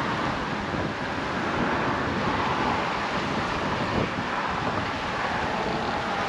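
Wind rushing steadily over the microphone, mixed with choppy sea water and road traffic on the bridge, with a light knock about four seconds in.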